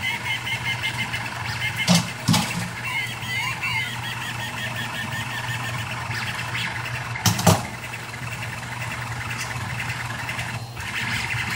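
Rostock MAX delta 3D printer running: its stepper motors whine in shifting tones that rise and fall as the print head moves, over a steady low hum. Sharp knocks come twice, about two seconds in and again near the middle.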